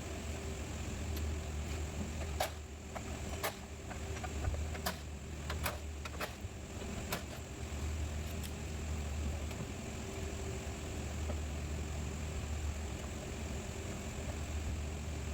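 A run of sharp clicks and knocks from about two to seven seconds in, over a steady low mechanical hum: hand tools and fasteners being worked during bumper and condenser removal.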